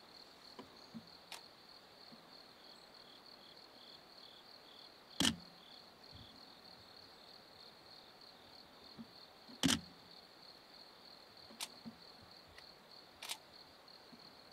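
Insects chirping steadily in a high, even trill, with a second fainter insect pulsing for a few seconds. A few sharp clicks cut through, two louder ones about five and nine and a half seconds in.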